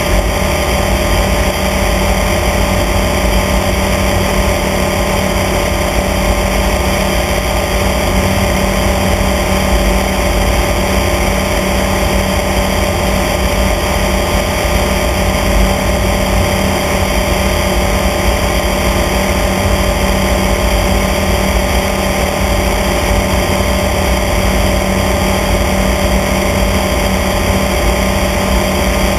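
Small aircraft's engine and propeller running steadily in level flight at a constant pitch, with a low rumble underneath.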